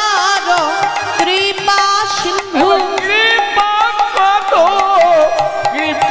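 Devotional kirtan music: a melody with gliding, ornamented notes played over steady hand-drum strokes and frequent sharp percussion hits.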